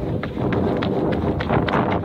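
Quick footsteps scrambling up a loose mound of earth and manure, about three to four steps a second, over a rough rustling noise.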